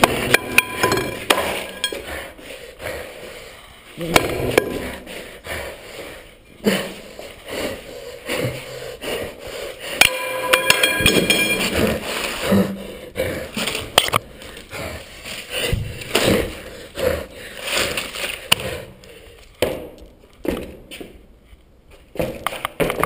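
Irregular crunching, knocks and clatter from footsteps over broken plaster and debris, together with handling noise from the jostled handheld camera.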